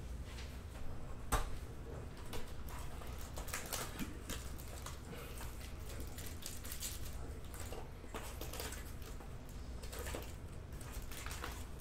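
Trading cards and their packs being handled and sorted by hand: irregular light clicks, flicks and rustles, with one sharper tap about a second and a half in.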